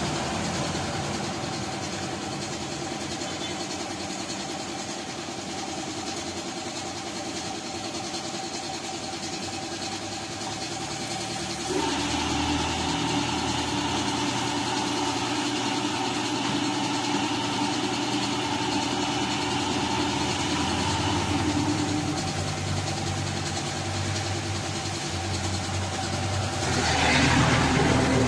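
Electric air compressor running with a steady hum. A second machine tone starts suddenly about twelve seconds in and stops about nine seconds later, and a loud rush of air comes near the end.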